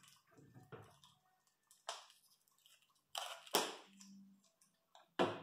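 Objects being handled on a work surface: a few short rustling and knocking noises, the loudest about three and a half seconds in.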